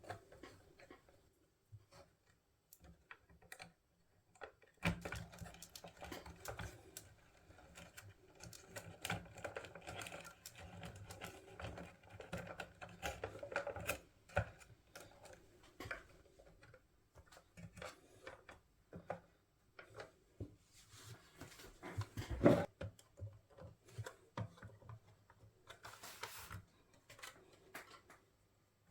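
Irregular small clicks, taps and light scrapes of hands and small tools working on a plastic boombox and its parts, with one louder knock about two-thirds of the way through.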